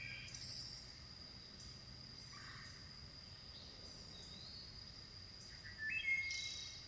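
Outdoor natural ambience: a steady high-pitched insect trill with birds calling over it, one louder stepped bird call about six seconds in.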